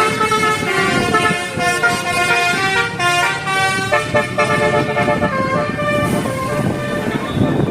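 Indonesian bus 'telolet' horn: several horn tones sounding together and changing pitch to play a tune, with a few notes sliding downward about a second in, over the rumble of traffic.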